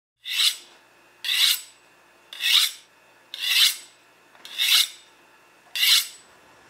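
A blade being sharpened: six even strokes of a knife drawn along a sharpener, about one a second.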